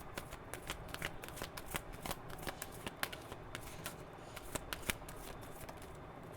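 A deck of tarot cards being shuffled by hand: a quiet, irregular run of quick card flicks and snaps, a few of them louder near the end.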